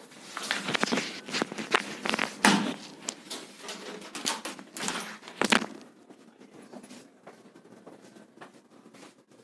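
A person moving about just after leaving the shot: a string of footsteps with knocks and bumps for about five and a half seconds, then only faint room tone.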